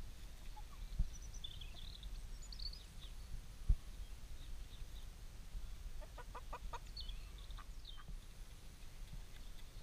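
Chickens clucking softly around a hand-fed handful of grain, with a quick run of short clucks about six seconds in and a few small high chirps, over a steady low rumble. Two dull thumps stand out, about a second and nearly four seconds in.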